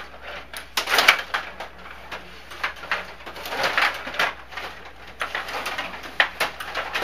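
Stiga table hockey game in play: quick clicks and clatter of the plastic players, rods and puck striking and rattling, busiest about a second in and again around four seconds in.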